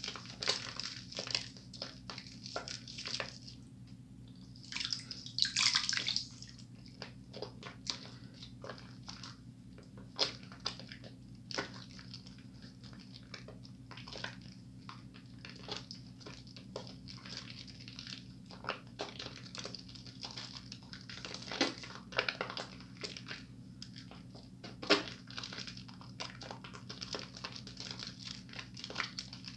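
Wet squishing and squelching of hands rubbing a bar of soap into thick lather: many short, quick squelches, one longer, louder squish about five seconds in. A steady low hum runs underneath.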